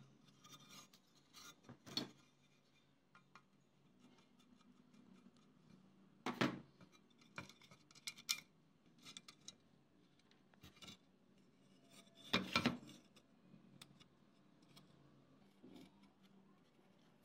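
Small scrapes and clicks of hands handling a rusty sheet-metal exhaust fan blade assembly and working at its small bolts and nuts. A few louder metal scrapes come about two, six and twelve seconds in.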